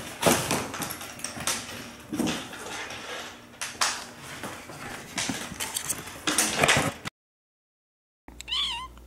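A kitten scrambling about on a hardwood floor and through crinkly plastic air-pillow packaging: irregular scuffs, clicks and crinkles for about seven seconds. After a short silence, a brief wavering pitched sound near the end.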